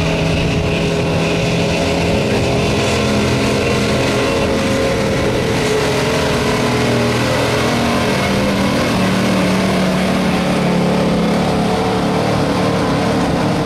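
1985 Chevrolet pickup's gasoline engine running hard at high revs under heavy load while pulling a weight-transfer sled, holding a steady pitch that dips and rises slightly a few times.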